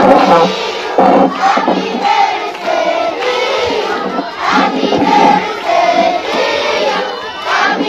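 A large group of children singing together in unison, in short phrases of held notes.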